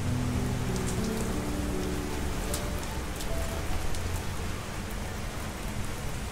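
Steady rain falling: an even hiss with scattered sharp drop ticks. Soft held music notes play under it for the first few seconds.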